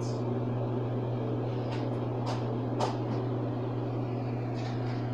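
Steady low mechanical hum, with a few faint light clicks partway through.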